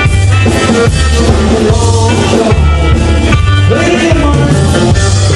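Live rockabilly band playing: electric and acoustic guitars, upright bass and drums, with a man singing at the mic.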